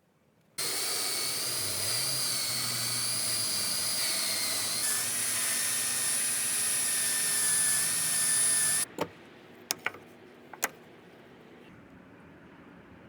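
A handheld power tool's motor starts suddenly and runs steadily with a high whine for about eight seconds, its pitch dipping slightly partway through, then stops abruptly. A few sharp clicks follow.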